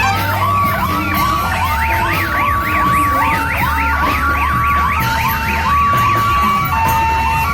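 Telolet horn and siren of a parade odong-odong sounding together: rising siren whoops repeat about twice a second and come faster and higher for a few seconds in the middle. Held horn notes switch between two pitches every second or so, over a steady low hum.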